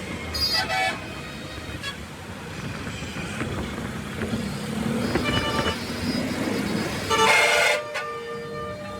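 Roadside traffic running steadily, with vehicle horns sounding several short times; the loudest blast comes about seven seconds in.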